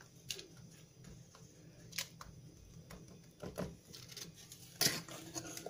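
Faint handling sounds of a spoon and baking parchment as meringue is spread over cake layers: a few short clicks and scrapes, the loudest near the end.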